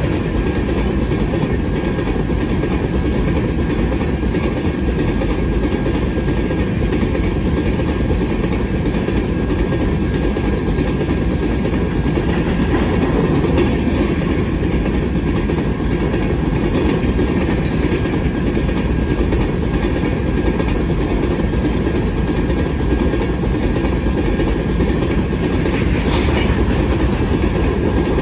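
Covered hopper cars of a grain train rolling past, a steady low rumble and clatter of steel wheels on the rails.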